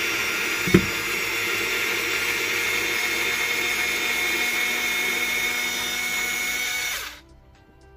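Hart cordless screwdriver's small electric motor and gearbox running steadily with a whine, turning a screw in wood. A single sharp click comes about a second in, and the motor stops about 7 seconds in.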